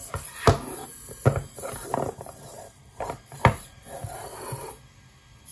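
Tomy i-SOBOT toy robot moving under remote control: servo noise with several sharp plastic clacks as its limbs and feet knock on the surface, dying away near the end.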